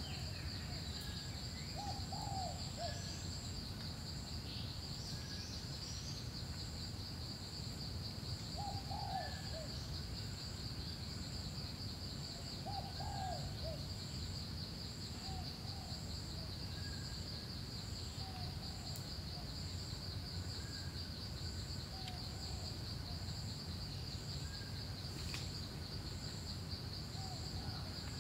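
Forest ambience: insects trilling steadily on a high note, with a fainter, higher pulsing insect above it. A bird gives short, low warbling calls every few seconds over a low rumble of background noise.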